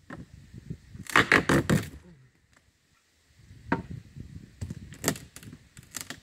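Wooden boards being knocked and pried loose. A quick run of sharp wood knocks and cracks comes about a second in, then scattered knocks and scraping follow over the last few seconds.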